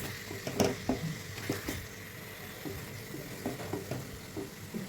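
Chicken in a thick spice paste sizzling in a pan as the water fries off and the oil begins to separate, with a steady hiss. A spatula stirs it, knocking and scraping against the pan at irregular moments.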